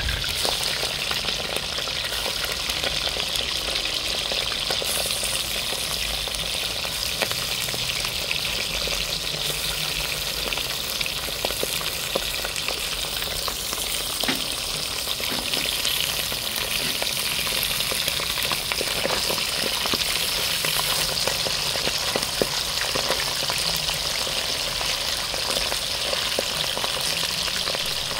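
Whole sprat fish frying in hot oil in a pot: a steady sizzle with scattered crackles all through.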